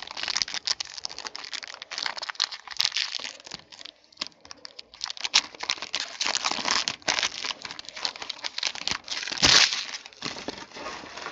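Crinkling and tearing of 2014 Topps Triple Threads baseball card pack wrappers being opened by hand, an irregular run of rustles with one louder rustle about nine and a half seconds in.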